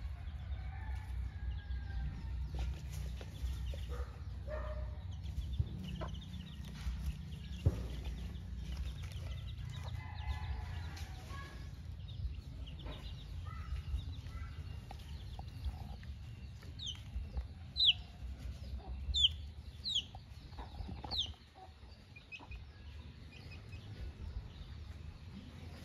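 White Kelso gamefowl hen clucking with her chicks peeping around her. The chicks give a run of sharp, high, falling peeps about two-thirds of the way through.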